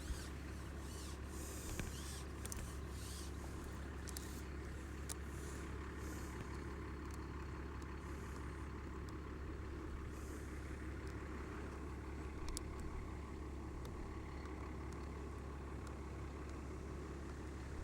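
Steady low rumble of wind buffeting an outdoor microphone. Several light clicks and knocks come in the first few seconds.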